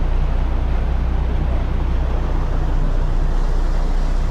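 Fishing boat's engine running steadily with a low, even drone, under a rush of wind and water noise.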